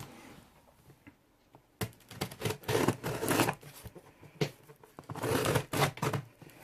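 Packaging being torn open by hand: two spells of tearing and crinkling, the first starting about two seconds in, the second about four and a half seconds in.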